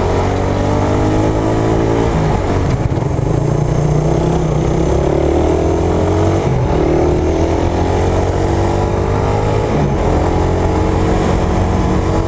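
Suzuki Raider R150 carburettor motorcycle engine pulling hard under acceleration, its pitch climbing and dropping back about three times as the rider shifts up through the gears.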